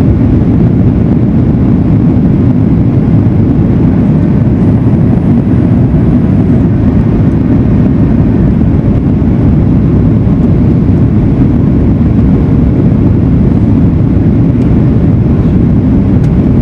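Steady low roar of a Boeing 737-900ER in flight, heard from inside the cabin: engine and airflow noise, even and unbroken throughout.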